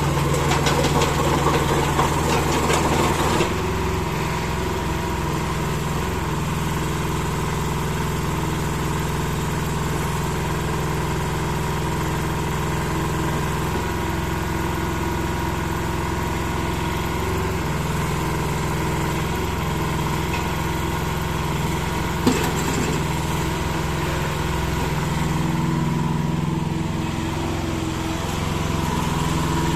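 Diesel engine of an IHI IS-008 mini excavator running, louder for the first three or so seconds and then steady. There is a single sharp click about 22 seconds in.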